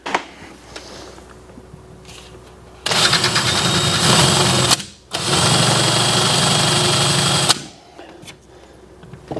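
Power drill running an oversized bit into a pre-drilled screw hole in a wooden cabinet face frame, countersinking it so the screw head sits below the surface. It runs in two steady spells of about two seconds each, with a short break between them.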